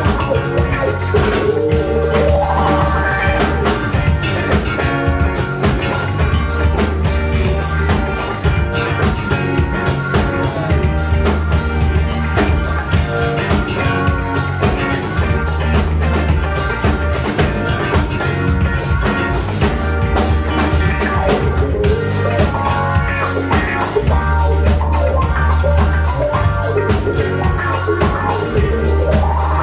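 Live rock band playing an instrumental passage: a drum kit keeps a steady beat under long held bass notes and guitar.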